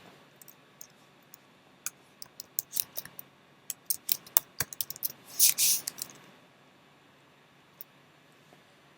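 Typing on a computer keyboard: a run of irregular key clicks, thickest in the middle, that stops about two-thirds of the way in, with one stray click after.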